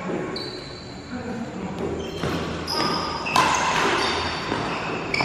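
Badminton doubles rally: a shuttlecock is struck back and forth with rackets, several sharp hits about a second apart, between high squeaks of court shoes on the floor, echoing in a large hall.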